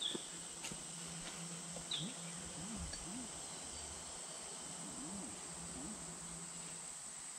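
Steady high-pitched drone of insects in the surrounding bush, with a short bird chirp at the start and another about two seconds in.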